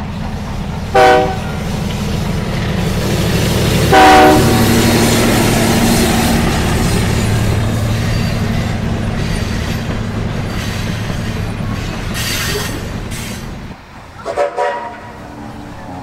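Steam locomotive whistle sounding two short blasts about three seconds apart, over the steady low rumble of the locomotive working through the yard. A short burst of hissing comes about three-quarters of the way through.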